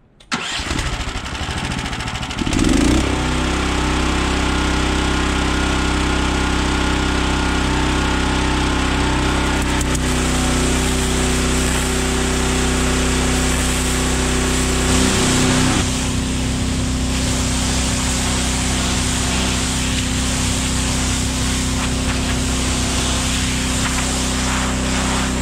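Steam jenny (steam cleaner) running: a steady engine drone under a continuous hiss. It comes on at the start, gets louder about two and a half seconds in, and its pitch shifts about fifteen seconds in.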